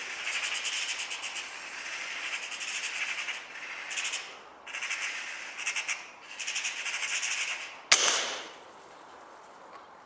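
Magpie chattering in several bouts of rapid rattling calls, then a single sharp shot about eight seconds in that rings away briefly.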